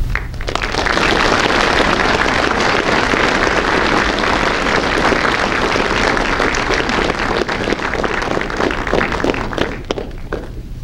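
Audience applauding: many hands clapping steadily, thinning to a few last claps near the end.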